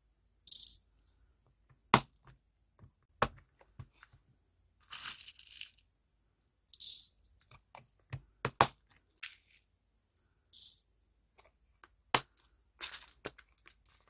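Small plastic beads rattling in a plastic measuring spoon and clicking as they are tipped out one at a time, with a few sharp taps of the spoon. The rattles and clicks come in scattered short bursts with silence between them.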